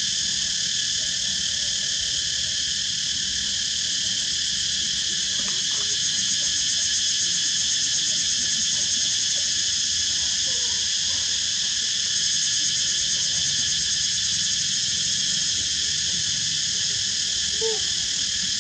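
Dense chorus of insects, a steady shrill drone that holds unchanged throughout.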